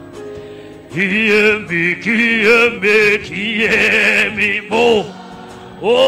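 A man singing a gospel song loudly into a microphone, in long wavering phrases, over held instrumental chords; the voice comes in about a second in.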